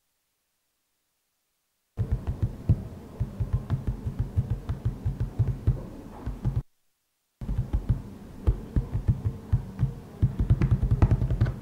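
Rapid low thudding pulses, several a second, starting after about two seconds of silence, breaking off briefly near the middle, then resuming.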